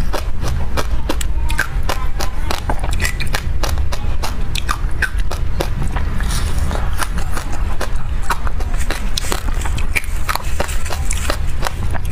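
Close-up chewing and crunching of passion fruit pulp coated in sesame seeds, many small sharp crackles from the seeds, over a steady low rumble.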